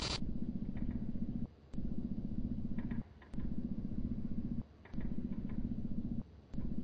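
A low, fast-pulsing mechanical buzz, like a running motor, that starts and stops in even bursts of about a second and a half. Each burst is broken by a short gap with a faint click, so the same short sound seems to be looped over and over. A brief sharp hiss comes right at the start.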